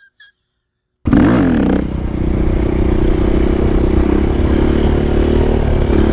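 Near silence for about a second, then a KTM 530 EXC's single-cylinder four-stroke engine cuts in suddenly. Its pitch swings briefly up and down, then it runs at a steady note as the bike is ridden.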